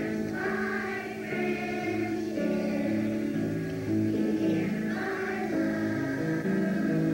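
Children's choir singing in unison, holding each note for about a second as the melody steps along, on a worn VHS recording.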